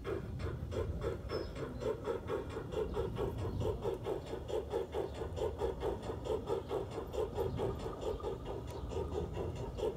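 LGB garden-scale model steam locomotives running along the track with a train of wagons, giving a steady, evenly repeating rhythmic beat of several pulses a second.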